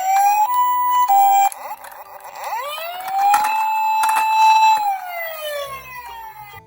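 Electronic emergency-vehicle sirens of toy minicars. A rising wail goes into a brief high-low two-tone, the Japanese ambulance pattern. Then a wail rises, holds for about a second and a half and falls away.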